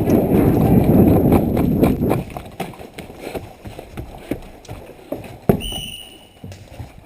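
A crowd of players running off over the ground: heavy trampling at first, thinning to scattered footsteps as they spread out. About five and a half seconds in, a referee's whistle sounds one blast of nearly a second, the second whistle that signals live play.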